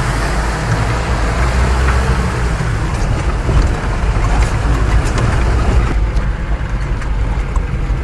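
Off-road vehicle's engine running as it crawls over a rough, rocky gravel track, heard from inside the cab as a steady low rumble. Scattered knocks and rattles come from the body jolting over stones.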